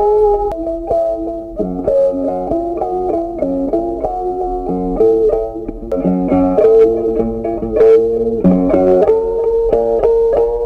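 Background music: a plucked guitar melody with clear, changing notes.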